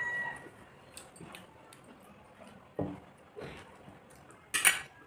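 A stainless-steel bowl clinks sharply near the end, after a couple of softer knocks from dishes.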